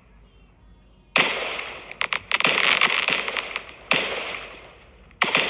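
Aerial fireworks bursting overhead: three sudden bangs, about a second in, near four seconds and just before the end, each followed by crackling that fades away.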